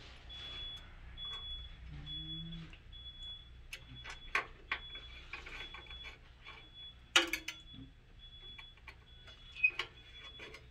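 Small metal clicks and taps of a hand driver turning long 2.5 mm screws into a metal mounting bracket, with one sharp click about seven seconds in.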